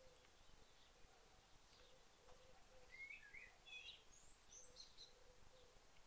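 Faint chirps of small songbirds at a feeder: a quick cluster of short, sweeping notes about halfway through, lasting a couple of seconds.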